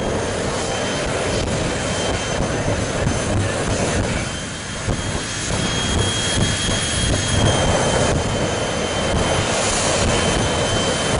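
Jet engines of jet-powered drag-racing funny cars running at the start line, afterburner lit: a loud, steady rushing roar with a high turbine whine over it, easing briefly about four seconds in before building again.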